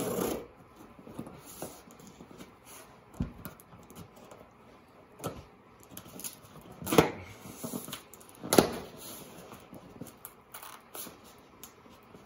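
Hands working at a small cardboard box, trying to get it open. Scattered rustling, scraping and tapping, with two loud sharp knocks about a second and a half apart past the middle.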